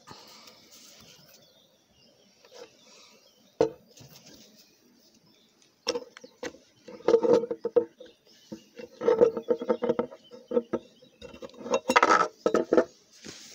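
Handling of a small aluminium four-stroke engine cylinder and its piston on a wooden tabletop. There is one sharp knock about three and a half seconds in, then from about six seconds on irregular runs of metal clattering and knocks against the wood.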